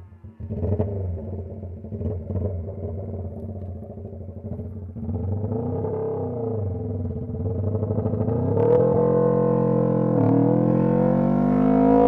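Honda CB125T motorcycle engine pulling away and accelerating, its note dipping and rising as it goes through the gears, then settling into a louder, higher steady run in the last few seconds.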